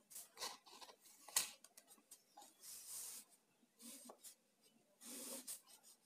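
Faint scratching of a pen drawing lines on paper, in a few separate strokes, with one sharp tap about a second and a half in.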